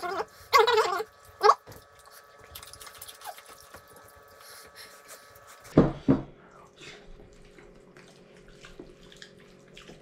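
Close-miked eating sounds: quiet wet chewing and small mouth clicks. A short voice comes near the start, and two loud, short, low mouth sounds come about six seconds in.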